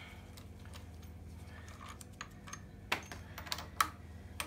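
Sharp metallic clicks and taps from hand tools on the bolts being loosened, a few of them in the second half, over a steady low hum.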